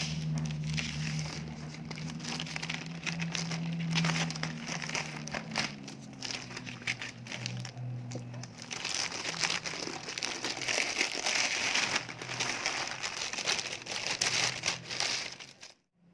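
Plastic packaging crinkling and rustling as a parcel is unwrapped by hand, cutting off suddenly near the end.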